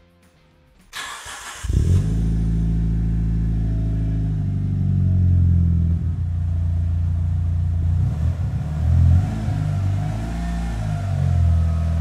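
Mitsubishi Lancer Evolution VI's turbocharged 2.0-litre four-cylinder engine cold-started: the starter cranks briefly about a second in, the engine catches and settles into a steady fast idle to warm the oil. Near the end the engine note shifts as the car pulls away.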